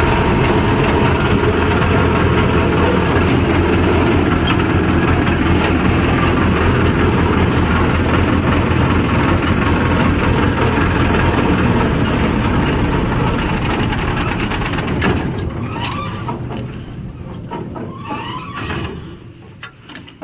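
Mini tractor combine harvester engine running steadily with a heavy low hum. It fades away over roughly the last six seconds.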